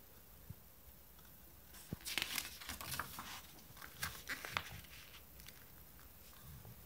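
Faint crinkling and rustling handling noises with a few sharp clicks, clustered between about two and five seconds in, over quiet room tone.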